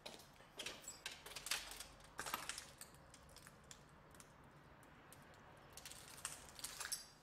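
Faint, irregular clicks and scuffs of someone moving about on a gritty floor, in small clusters about a second in, around two seconds in and near the end.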